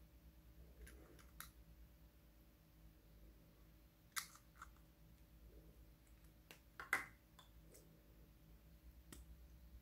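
Sparse, sharp little plastic clicks as small cosmetic tubes are handled and their caps pulled off, with the loudest clicks about four and seven seconds in, over near silence.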